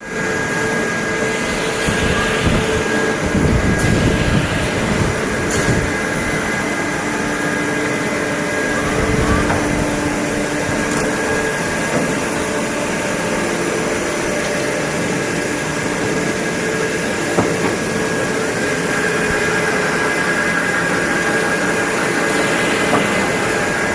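Mori Seiki Frontier-L CNC lathe running: a steady machine hum with several held tones, some low rumbling surges in the first few seconds and an occasional sharp click.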